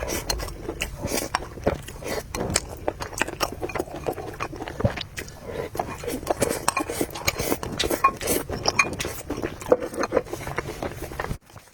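Close-miked eating sounds: a person chewing and biting into noodles, with a dense run of quick wet clicks and smacks and cutlery clinking against a bowl. The sound cuts out briefly near the end.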